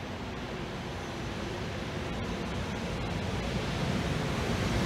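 Freight train hauled by an EF510 electric locomotive approaching: a steady rushing rumble that grows gradually louder as it nears.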